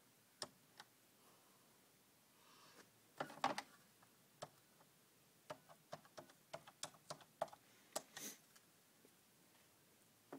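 Faint plastic clicks of buttons being pressed on a multi-line office desk telephone's keypad: a few scattered presses, then a quicker run of about a dozen in the second half.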